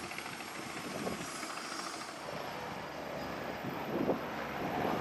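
AgustaWestland AW109SP helicopter's twin Pratt & Whitney PW207C turboshaft engines and rotors running on the ground before take-off, a steady rush of rotor and turbine noise that gets louder over the last second or two.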